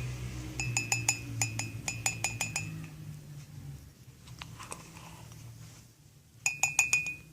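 Spoon clinking against a cup as beaten coffee-sugar cream is scooped out and transferred into a second cup. A quick run of ringing clinks for about two seconds, a few lighter taps, then another quick run near the end.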